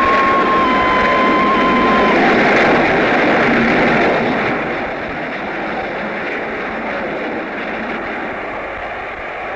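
Steam locomotive running with a loud rushing noise, its whistle holding one steady note for the first two seconds. The running noise eases off after about four seconds.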